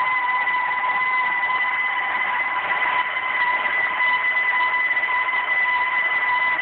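KitchenAid stand mixer driving its grain mill attachment, grinding grain into flour: a steady motor whine over an even grinding hiss, unchanging throughout.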